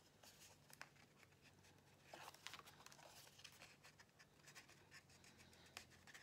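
Faint paper rustling and small scattered clicks of fingers picking at and peeling the backing off double-sided tape on cardstock.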